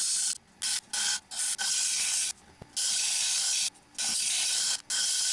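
Sandpaper rubbing on a catalpa wood cylinder as it spins on a wood lathe: a loud hiss that starts and stops as the paper is pressed on and lifted. There are a few quick touches in the first second or so, then runs of about a second each with short breaks between them.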